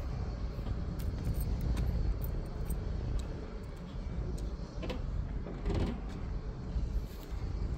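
Low, uneven outdoor rumble, strongest in the bass and without any steady engine tone, with a few faint knocks and clicks scattered through it.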